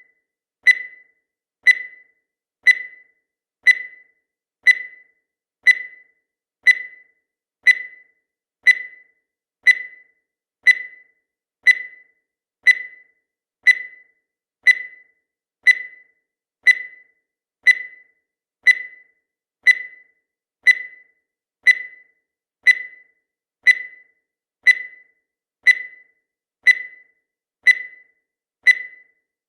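Countdown timer sound effect: a short, high beep once every second, each fading quickly, marking off the seconds.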